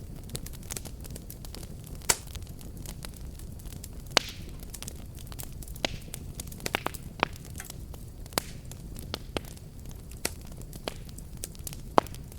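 Fireplace fire burning, with a steady low rumble of flames and scattered sharp crackling pops, the loudest about two, four and twelve seconds in.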